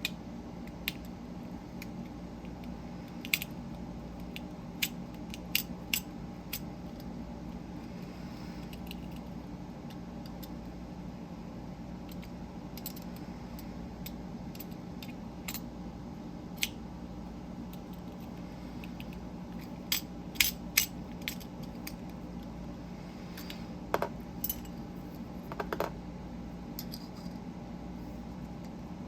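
Telephone-dial fidget toy being handled and worked apart, giving scattered sharp clicks and clinks, a few with a short ring, over a steady low hum.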